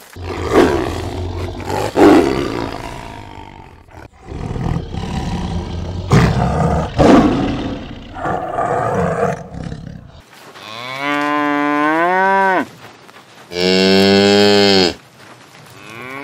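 A tiger growling and roaring in a run of harsh, rough calls, followed about ten seconds in by a cow mooing twice in long calls that rise and then fall in pitch.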